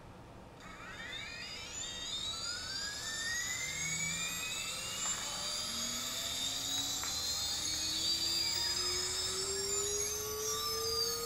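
Brother Hobby Speed Shield 2400 KV brushless drone motor spinning up on a thrust stand with no propeller, driven by a steady automated throttle ramp for a KV test. It starts about half a second in and gives a whine of several tones that rise steadily in pitch and grow louder.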